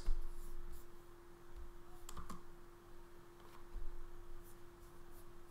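Computer keyboard keystrokes, a few scattered clicks spread out with pauses between them, over a faint steady hum.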